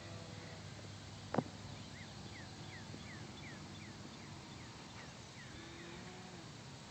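The 64-inch Extreme Flight MXS's brushless electric motor (Torque 4016) and propeller humming faintly in the distance. A bird repeats short descending chirps about three times a second through the middle, and a single sharp click sounds about a second and a half in.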